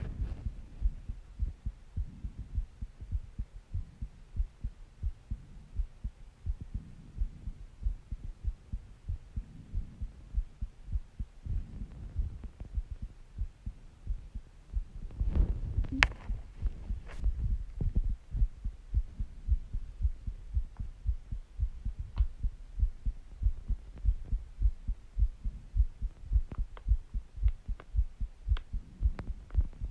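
Human heartbeat recorded close up: a steady rhythm of low thumps, with slow breaths swelling underneath. A couple of sharp clicks come about halfway through.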